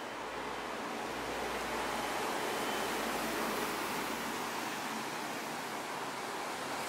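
Street traffic noise: a steady wash of passing vehicles that swells about a second in, with a low rumble, and eases off after about four seconds.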